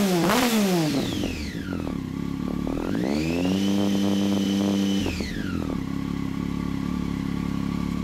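Triumph Street Triple R's 675 cc inline-three engine revved through Arrow slip-on silencers: the revs fall from a throttle blip to idle, rise again about three seconds in and hold for about two seconds, then drop back to a steady idle.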